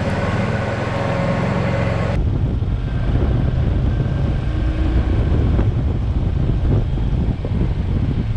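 Small farm vehicle's engine running as it drives along, with steady tones over the noise at first. About two seconds in it changes abruptly to a heavier low rumble, with wind buffeting the microphone.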